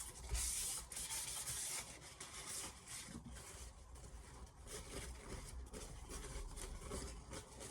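Kitchen towel rubbed over the surface of a diamond sharpening plate, wiping off metal filings, with a dry scraping hiss. It is strongest in the first two seconds, then goes on as lighter, fainter strokes.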